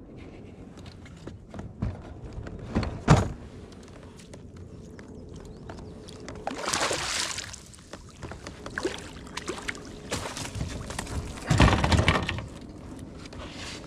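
Knocks and thumps on a fishing kayak, with a sharp loud knock about three seconds in, and two brief rushing noises around seven and twelve seconds in.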